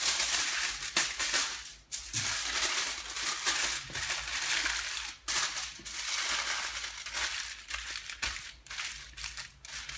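Aluminium foil crinkling and crackling as it is folded and pressed by hand around a burger, with brief pauses between folds.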